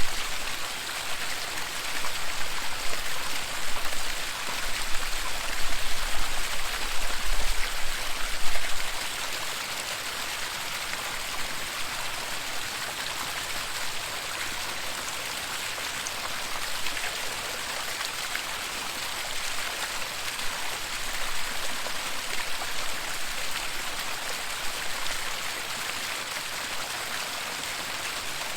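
Waterfall water rushing in a steady, even hiss. A low rumble comes and goes during roughly the first nine seconds.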